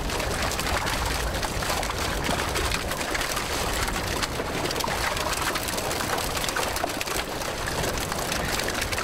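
A pile of freshly netted fish flapping in the bottom of a wooden boat: a dense, steady patter of wet slaps, with water splashing.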